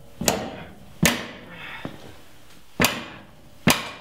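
Four sharp metallic clanks, each ringing briefly, as a wrench on a stubborn rear leaf spring shackle bolt is kicked with a boot to break the bolt loose.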